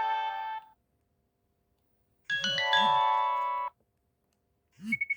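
Nokia 6070 mobile phone playing its ringtones: one melody cuts off in the first second, and after a pause a second, short ringtone of a few notes plays for about a second and a half. A few short clicks, with a brief beep, come near the end, as the phone's buttons are pressed to move to the next tone.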